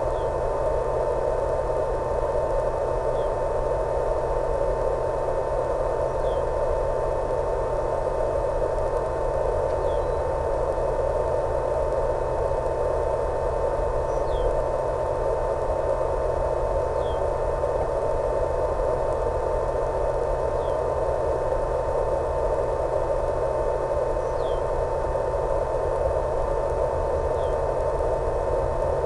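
Steady radio static hiss with a constant mid-pitched tone and a low hum, from the audio channel of a 1.28 GHz analog FPV video link. Faint short falling chirps come through every few seconds.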